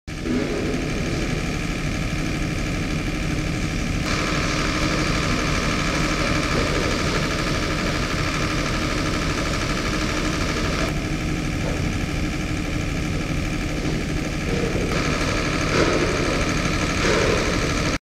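Engine running steadily, a low hum with a high whine over it. Its tone shifts a few times, about four, eleven and fifteen seconds in.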